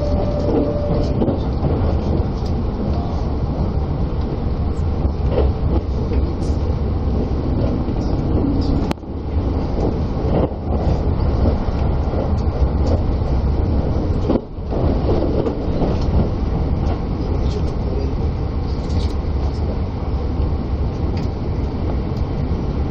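Limited express train running at speed, heard from inside the passenger car: a steady, dense rumble of wheels on rail. The loudness dips briefly twice in the middle.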